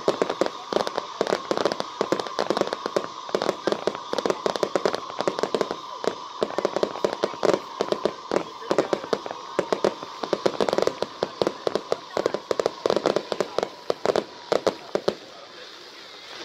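Fireworks going off in a dense, rapid run of cracks and pops, thinning out about fifteen seconds in.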